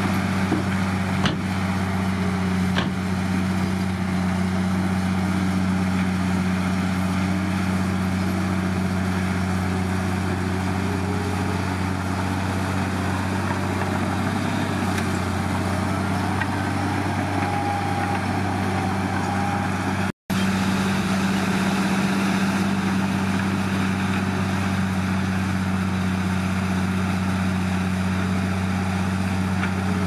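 Komatsu D53P bulldozer's diesel engine running steadily, with the sound cutting out for an instant about two-thirds of the way through.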